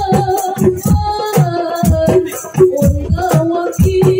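A woman singing sholawat, a devotional Islamic song, in a long bending melody, amplified through a microphone. A hadroh ensemble of frame drums accompanies her, with about three deep drum strokes a second and a shaken, jingling rattle.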